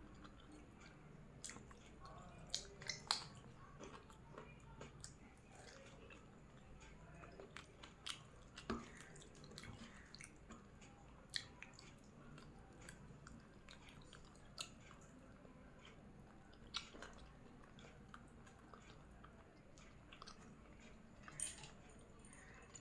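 Faint close-miked chewing and wet mouth sounds of someone eating biryani, with scattered sharp smacks and clicks every few seconds.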